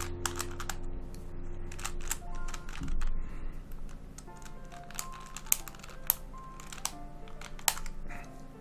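Irregular sharp plastic clicks and taps as a small screwdriver prods and levers at the pieces of an MF8 Curvy Copter Plus 3x3 puzzle to dig out a loose centre piece that has fallen inside. Soft background music with held notes plays underneath.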